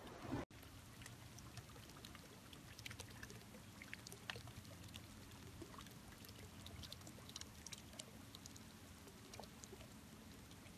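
Near silence: faint outdoor ambience, a low steady hum with scattered soft ticks, cut by a brief dropout about half a second in.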